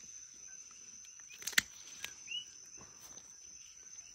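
Night insects: a steady high-pitched cricket-like drone with a short rising chirp repeating every second or two. A single sharp click about a second and a half in.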